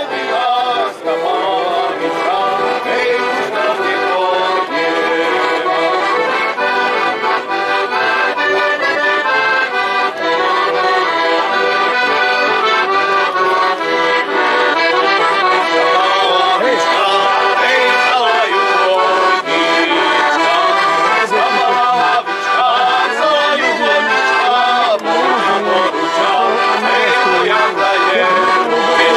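Slovak folk music played on accordions, running without a break.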